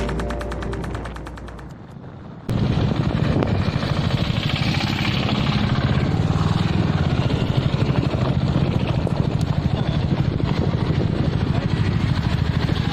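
Background music fading out over the first two seconds, then an abrupt cut to a motorcycle running under way: a loud, steady engine sound with a rapid pulsing flutter.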